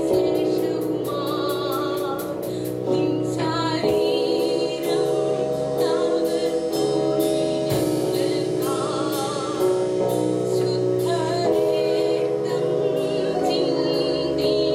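Praise and worship music: voices singing together over a band, with sustained chords and a steady beat of cymbal strikes.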